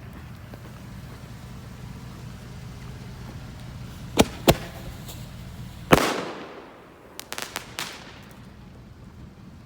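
Waterlogged consumer ball shells firing: two sharp bangs about a third of a second apart, then a louder bang about two seconds in that dies away over a second, followed by a quick run of smaller cracks. The shells are soaked from snow and rain, and most of them fail to fire or break properly.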